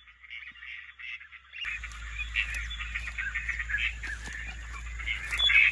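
Dense marsh chorus of many rapid, short animal calls running on together. About a second and a half in, a steady low hum and hiss come in suddenly.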